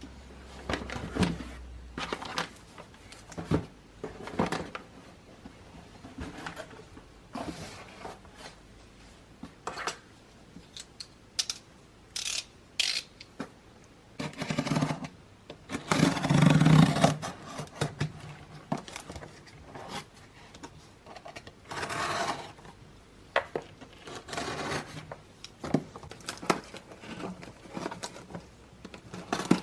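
Close handling noises of objects being worked by hand: a string of sharp clicks and taps mixed with scraping and rustling, the longest and loudest scrape about halfway through.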